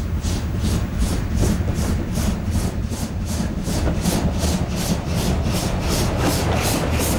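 Steam tank locomotive working a train past at speed, its exhaust chuffing in an even rhythm of about four beats a second over the low rumble of the running gear.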